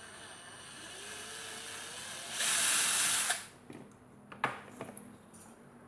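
Small electric drill running, its pitch slowly rising, then a louder burst of about a second as it bores through, followed by a few knocks and clicks of handling.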